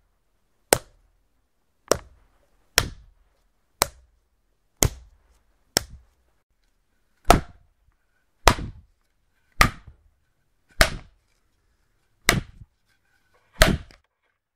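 Slap sound effects played one after another, about one a second: six sharp skin-on-skin slaps, then after a short pause six heavier, louder slaps.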